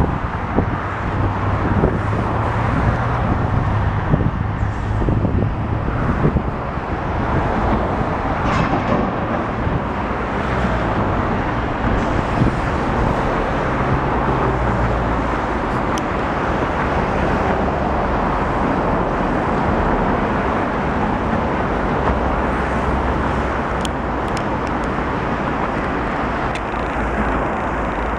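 Steady noise of heavy trucks' engines running, with a low engine hum that shifts in pitch now and then.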